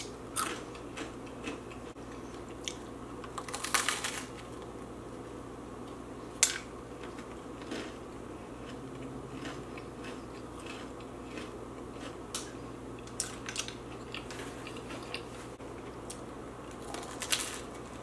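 A person biting and chewing crunchy Hot Cheetos: scattered crisp crunches, with louder clusters about four seconds in and near the end.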